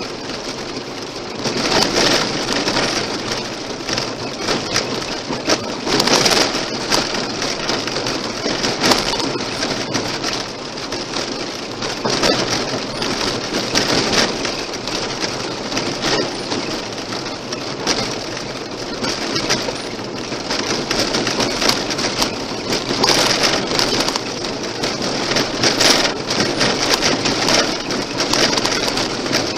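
Car tyres rolling over a gravel road, with steady gravel roar and frequent sharp cracks of stones and grit striking the underbody and wheel arches, heard from inside the car.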